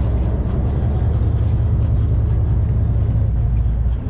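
A 61-foot sportfishing boat's engines running steadily under way, a loud, even low rumble, with wind and water noise on the microphone.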